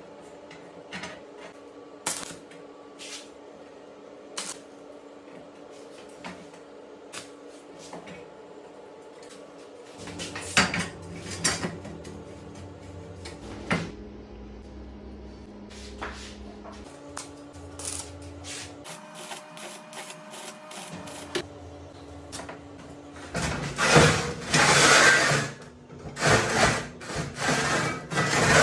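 Hand work on workshop materials: scattered taps, knocks and handling noises over a faint steady hum, then from about 23 seconds in several loud scraping or rasping strokes.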